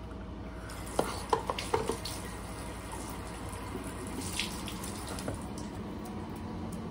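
Water running from a washbasin tap while hands are washed under it, a steady hiss with a few sharp clicks and splashes in the first two seconds.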